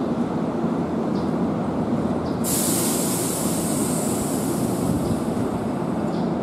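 Keihan Main Line electric train moving at a station platform: a steady rumble of wheels and running gear. A sudden high hiss starts about two and a half seconds in and fades away over the next three seconds.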